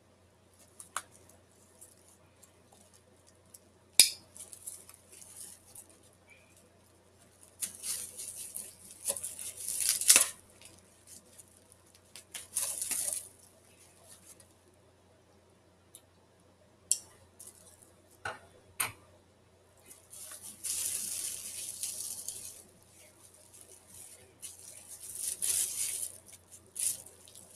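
Packaging being unwrapped by hand: repeated bursts of crinkling and rustling wrapping, with scattered sharp clicks and taps.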